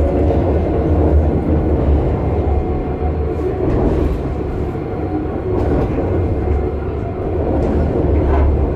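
Interior running noise of an A-class tram under way: a steady low hum with the rumble of wheels rolling on the rails.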